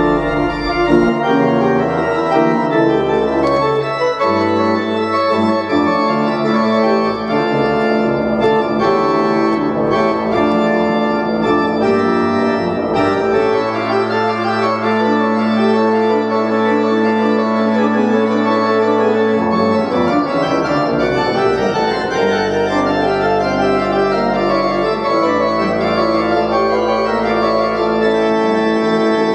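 Pipe organ played on manuals and pedals: several voices of sustained notes over a moving bass line. Around the middle a low bass note is held for several seconds.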